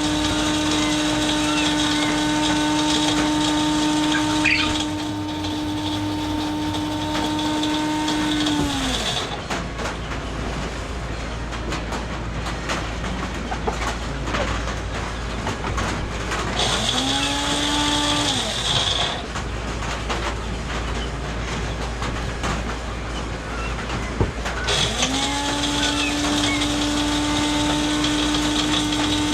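A motor humming steadily at one pitch. It winds down to a stop about nine seconds in, spins briefly up and down again around seventeen seconds, and starts up again near twenty-five seconds. A steady hiss of running water or rain fills the gaps.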